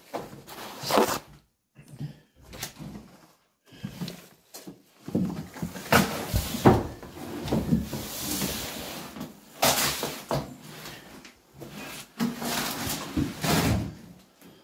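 Irregular knocks, scrapes and crunches of someone moving through a trashed room: footsteps on debris and a wooden door being handled, with a longer rustling scrape in the middle.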